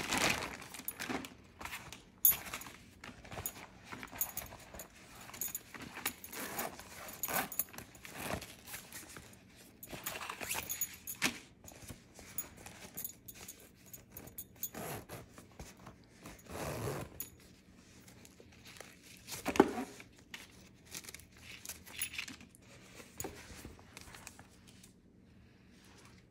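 Clear plastic packaging bag rustling and crinkling in irregular handfuls as a fabric fanny pack is pulled out and handled, with light clinks from its metal zipper and strap hardware. The sounds thin out and stop near the end.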